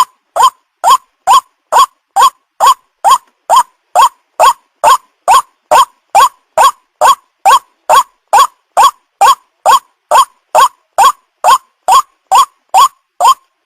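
White-breasted waterhen call used as a lure: one short note repeated evenly, about twice a second throughout, each note hooking sharply in pitch.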